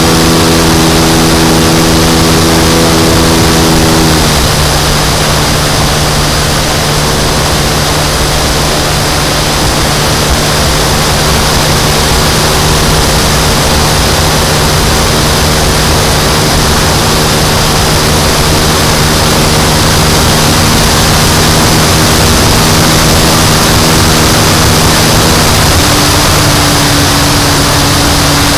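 Radio-controlled model airplane engine and propeller running steadily in flight, heard close up from on board. The engine note steps down slightly about four seconds in and shifts again near the end.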